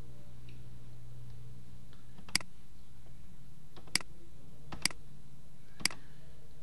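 Four sharp computer mouse clicks, spaced about a second apart, over a faint steady low hum.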